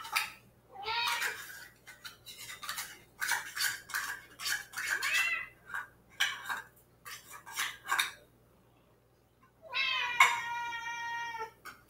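House cats meowing over and over while waiting for wet food, with clinks of dishes mixed in, then one long drawn-out meow near the end.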